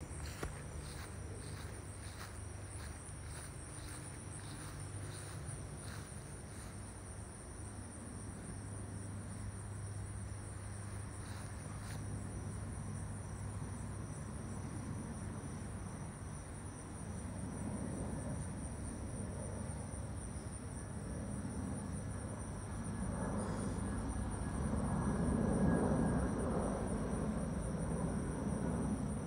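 Jet engines of a FedEx Boeing 767-300F on approach, a low rumble that grows louder as the freighter passes overhead, loudest near the end. Steady high-pitched insect chirring runs underneath.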